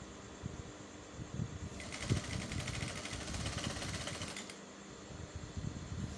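Electric sewing machine running steadily, its needle stitching through layered cotton print fabric and lining with a fast, even chatter.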